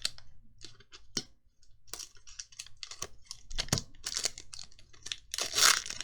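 Trading cards being handled and flicked through: a run of small irregular clicks and snaps as cards slide against one another, with a louder rustle about five and a half seconds in.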